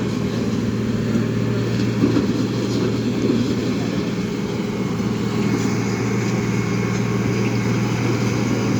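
Diesel engine of heavy road-levelling machinery running steadily with a low, even hum as the road surface is levelled.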